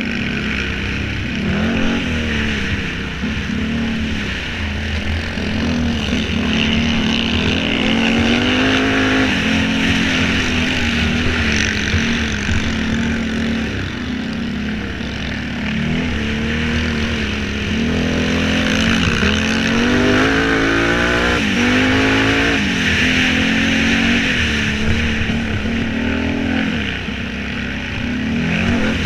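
Sport quad (ATV) engine heard from onboard at race pace, revving up and easing off again and again as the rider accelerates and backs off through the turns, its pitch rising and falling every second or two over a steady rushing noise.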